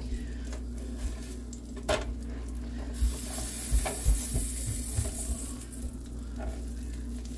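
Pancakes sizzling in a nonstick frying pan while a spatula knocks and scrapes against the pan. About three seconds in a pancake is flipped and the sizzle turns suddenly louder and hissier for a couple of seconds before settling.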